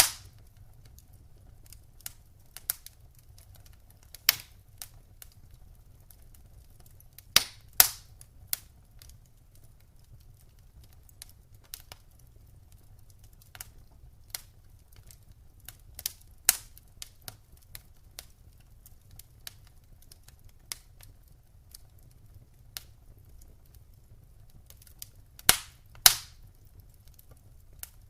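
Wood fire burning in a fireplace, crackling with irregular sharp pops of varying loudness over a faint low rumble. The loudest pops come as a pair about a quarter of the way in and another pair near the end.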